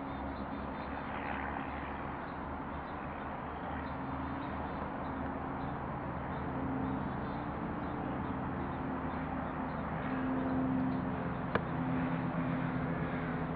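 Outdoor ambience: a steady low mechanical hum under a hiss of background noise, with faint bird chirps and a single sharp click late on.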